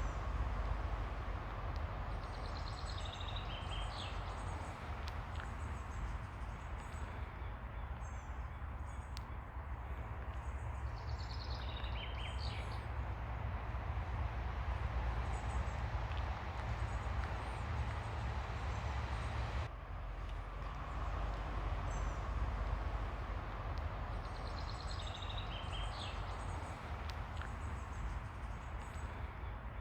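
Ocean surf washing onto a beach in a steady rush with a deep rumble underneath. A bird calls a short run of high notes three times, with faint high chirps in between.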